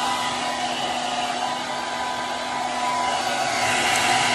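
Handheld hair dryer running steadily, a rush of air over a constant motor whine, blowing on hair. It gets louder near the end as the nozzle swings toward the microphone.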